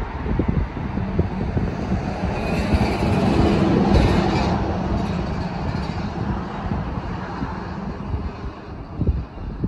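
A heavy vehicle passes on the bridge, a low hum that swells to its loudest about four seconds in and then fades, over wind rumbling on the microphone.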